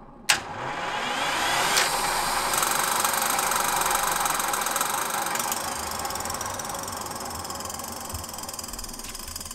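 GTD-350 helicopter turboshaft engine being cranked by its electric starter: a click, then the whine and rush of the turbine winding up over a couple of seconds and spinning steadily, easing slightly about halfway through.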